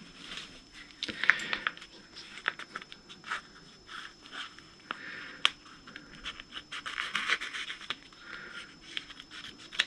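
Faint scratching with scattered sharp little clicks as ball python eggs are handled and cut open, their leathery shells being slit.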